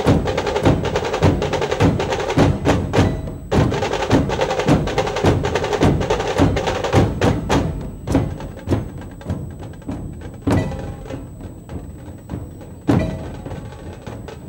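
A large ensemble of Maharashtrian dhol drums beaten in a fast, dense rhythm with sharp stick strokes. About halfway through the playing thins out and gets quieter, leaving sparser beats with a few loud single strokes.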